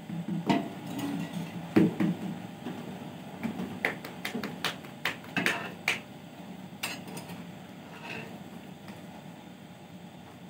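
A metal utensil clanking and scraping against a steel cooking pot, with a run of sharp clinks and knocks over the first six seconds, then quieter.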